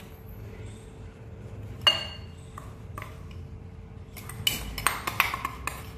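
Steel spoon clinking and scraping against a glass mixing bowl as brown sugar is tipped into melted ghee: one sharp ringing clink about two seconds in, a few lighter taps, then a quick run of clicks near the end.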